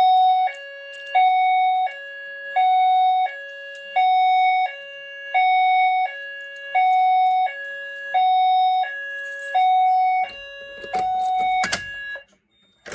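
Fire alarm notification appliance sounding a hi-lo tone: a loud two-note signal switching between a higher and a lower pitch about every 0.7 seconds, nine cycles in all, then stopping about twelve seconds in.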